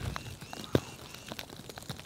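Snowstorm precipitation pattering: irregular light ticks and taps over a low hiss, with one sharper tap about three-quarters of a second in.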